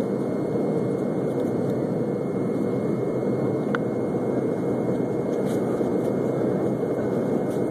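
Jet airliner cabin noise during the climb after takeoff: a steady rush of engine and airflow noise heard from inside the cabin.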